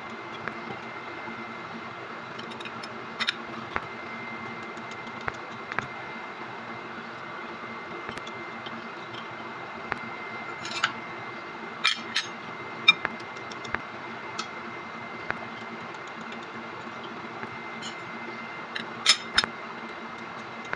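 Scattered light metallic clicks and clinks of the steel plates in a hydraulic drive motor housing, as they are seated and nudged into place with a thin rod, over a steady background hum. A few sharper clinks come about halfway through and again near the end.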